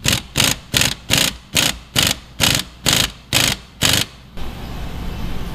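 Impact wrench hammering in short repeated bursts, about two to three a second, as it drives the forcing screw of a C-frame bushing press to push a rear camber bushing into an upper control arm. The bursts stop about four seconds in.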